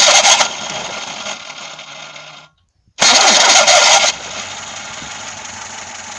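VAZ-2106 starter cranking the warm engine twice, about three seconds apart. Each start opens with a loud screech lasting about a second, and the engine then runs. The screech is the sign of a worn starter drive (bendix) slipping and rubbing against the flywheel ring gear.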